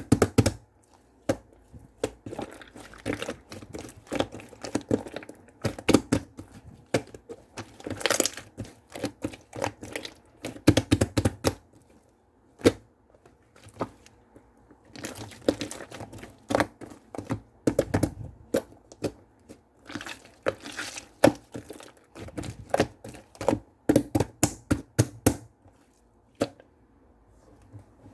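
Light pink slime being squeezed and worked by hand, giving quick irregular clicking and popping in runs, with quieter pauses about halfway through and near the end.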